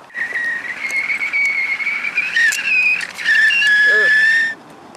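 Stainless steel whistling kettle whistling at the boil: a steady high whistle that wavers and jumps in pitch, then settles lower and louder before cutting off suddenly near the end.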